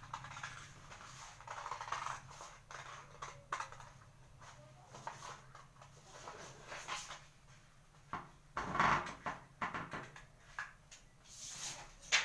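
Scissors cutting through a paper pattern along a curved neckline: irregular snips and paper rustling.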